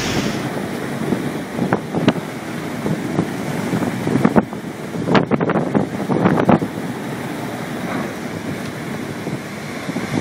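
Storm wind rushing over the microphone with the noise of heavy seas breaking and spraying over a bulk carrier's bow. Several gusty buffeting bursts come in the middle.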